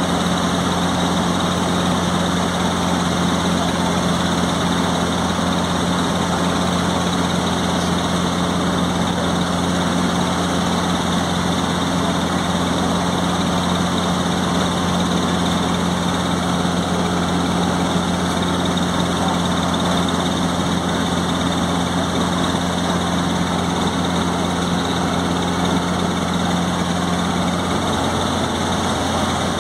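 Robinson helicopter in cruise flight, heard from inside the cabin: the engine and rotors drone steadily. A steady hum within the drone drops away shortly before the end.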